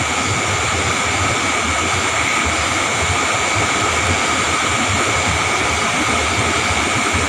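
Steady chorus of night insects in wet grass, an even hiss with several constant high-pitched tones.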